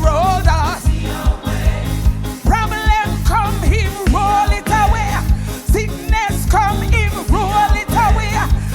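Gospel praise team singing a hymn over a live band, with a driving, upbeat beat from drums and bass.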